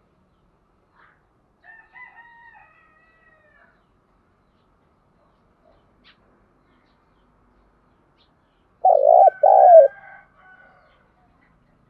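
Spotted dove cooing: one loud two-part coo near the end, low-pitched. A fainter call sounds about two seconds in. It is a decoy dove's crowing call, used to draw wild doves to the trap.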